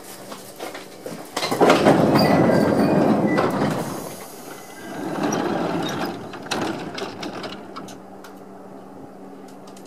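Chichibu Railway 1000 series electric train (ex-JNR 101 series) standing at a station platform: a steady low hum with scattered mechanical clicks, and two bursts of louder noise, the first and loudest about a second and a half in, the second about five seconds in.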